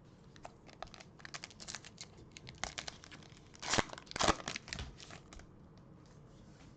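Crinkly wrapper of a trading-card pack being torn open and handled: a run of crackles with two louder rips about four seconds in.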